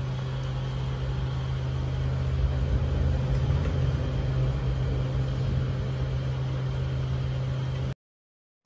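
Steady low mechanical hum over a constant noisy background, as from a motor running; it cuts off abruptly to silence about eight seconds in.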